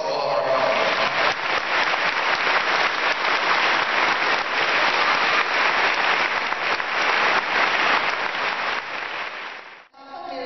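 Congregation applauding, many hands clapping steadily; it cuts off abruptly near the end.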